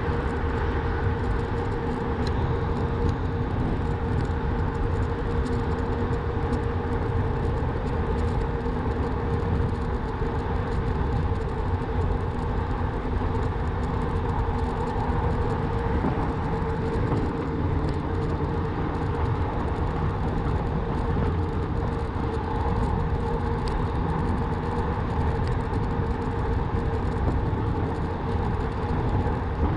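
Continuous riding noise from a Rawbike electric bike under way: heavy rumble with a hiss of wind and tyres, and a steady motor whine at one even pitch throughout.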